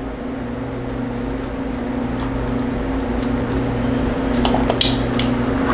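Milk pouring from a plastic gallon jug into a small paper cup, the pouring growing steadily louder as the cup fills, with a few light clicks a little past the middle. A steady air-conditioning hum runs underneath.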